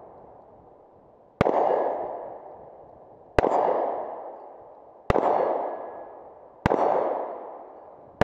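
Kimber K6s 2-inch .357 revolver fired at a slow, steady pace: four shots about one and a half to two seconds apart, each a sharp crack followed by a long echo that dies away. A fifth shot comes right at the end.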